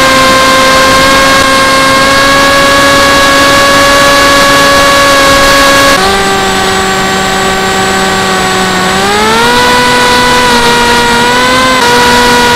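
Electric motor and propeller of a Tuffwing flying-wing plane, heard from the onboard camera, making a loud steady buzzing drone. About halfway through the pitch drops abruptly, then climbs again a few seconds later as the throttle changes.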